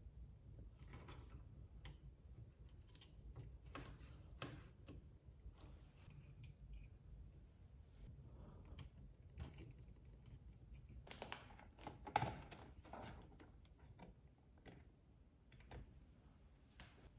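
Faint, scattered small plastic clicks and rustles as cable connectors are handled and pushed into the sockets of a Creality Ender 3 V2 3D printer, with a louder bout of rustling about two-thirds of the way through.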